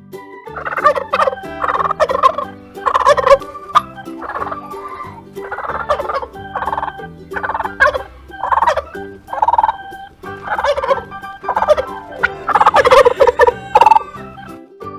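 Domestic turkey gobbling, a long series of rattling gobbles one after another, over faint steady background tones.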